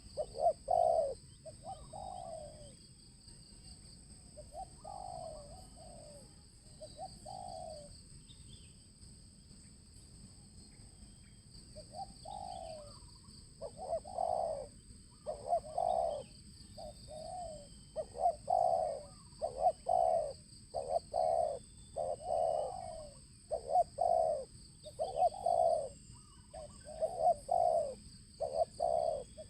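Spotted dove cooing: a few scattered coos at first, then from about halfway a fast, unbroken run of repeated coo notes. A steady high-pitched whine continues underneath.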